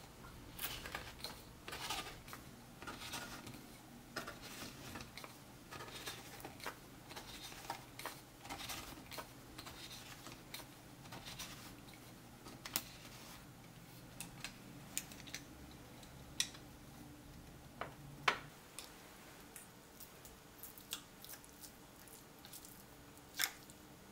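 Handheld crank can opener cutting around the lid of a tin of tuna: a run of small, irregular metallic clicks and scrapes as the cutting wheel is turned. Later the clicks thin out to a few sharper ticks and knocks.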